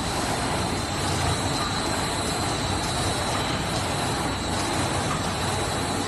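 Paper straw making machine running steadily: a dense, even mechanical noise with a thin, steady high whine over it.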